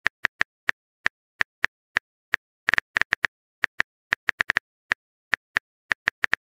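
Simulated phone keyboard typing clicks from a texting-story app: a run of short, sharp taps at an uneven pace, some coming in quick clusters.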